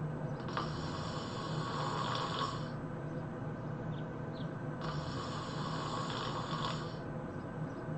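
A sleeping person snoring heavily in a steady rhythm. A low droning snore alternates with a breathy hiss of about two seconds, giving two full breaths.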